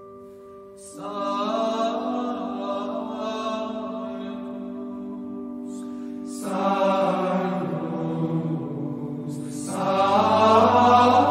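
Background music of chanting voices singing slow, sustained phrases over a held drone. The voices come in about a second in and start a new phrase about six and a half seconds in, and a low tone joins near the end.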